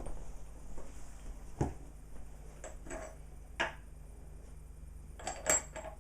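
A few separate clinks and knocks of small hard objects being handled, the loudest pair near the end, over a faint steady low hum.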